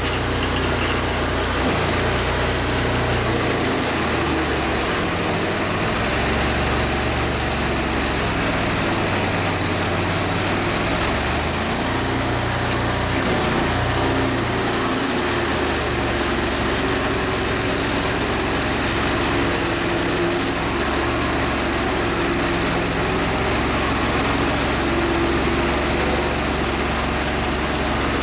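An engine running steadily throughout, its low tone shifting every few seconds.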